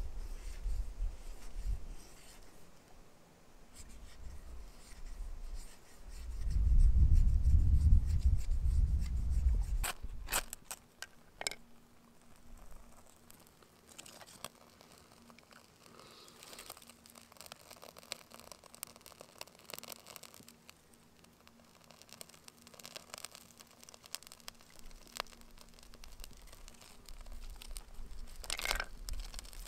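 A knife scraping and shaving dry birch wood into tinder, then a few sharp clicks and faint crackling and rustling as the tinder is lit and dry twigs are piled on. A loud low rumble on the microphone comes a few seconds in.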